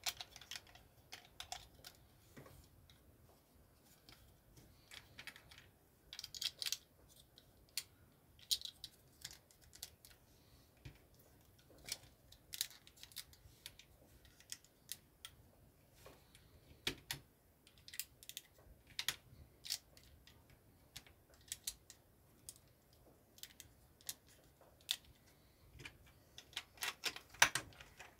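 Plastic LEGO bricks clicking and clattering as they are handled and pressed together: scattered sharp clicks, with a quick flurry about six seconds in and another near the end.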